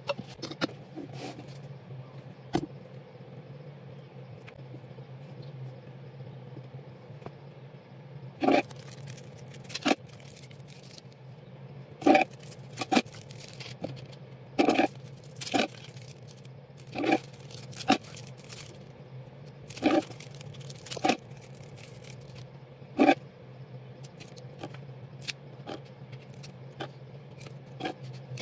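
Short, sharp clicks and scrapes of plastic and metal tools being handled on a cake turntable, over a steady low hum. The clicks come irregularly, a dozen or so, clustered in the middle of the stretch.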